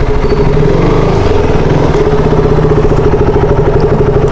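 A small combustion engine running steadily close by, with an even, rapid pulse.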